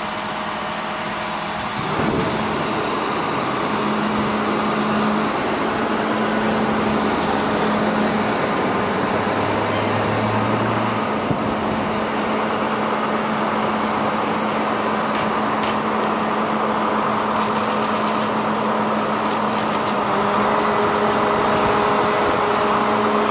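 Heavy vehicle engine running steadily under a constant hum, as a crane lift raises a sign off a flatbed trailer. A few light clicks come through in the last several seconds.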